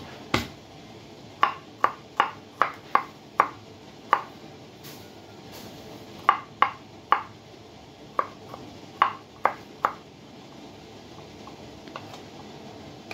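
Kitchen knife striking a wooden cutting board as garlic cloves are crushed and cut: sharp single knocks in short irregular runs, about sixteen in all.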